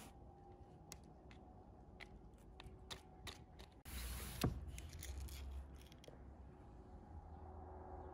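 Faint handling sounds of a metal baking tray and utensils: scattered light clicks and taps. About halfway through comes a louder rustling stretch with a sharp knock in it.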